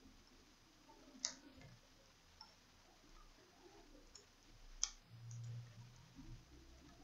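Two sharp clicks a few seconds apart as laptop motherboard cable connectors are pried loose with a hand tool, followed by a brief low hum.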